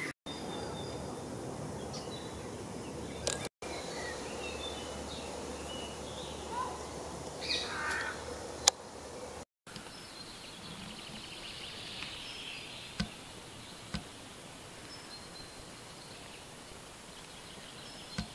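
Marsh ambience: a steady background hiss with scattered short bird calls and a few sharp clicks, broken by three abrupt cuts in the first half.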